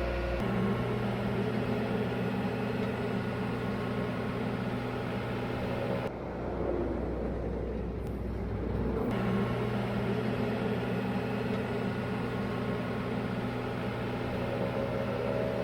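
Engines of road-building machinery running steadily. The sound changes abruptly about six seconds in and again three seconds later.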